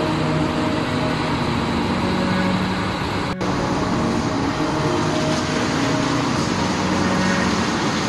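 Large wood crusher running steadily while processing wood: a continuous mechanical drone with a low steady hum, broken by a momentary dropout about three and a half seconds in.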